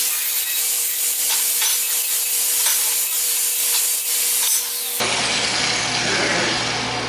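Angle grinder dressing the freshly cut edge of a steel flat bar: a steady motor whine under a loud grinding hiss, which cuts off suddenly about five seconds in.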